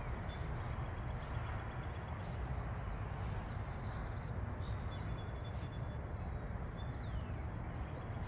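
Steady outdoor ambience with a low rumble, and faint bird chirps and tweets between about three and seven seconds in.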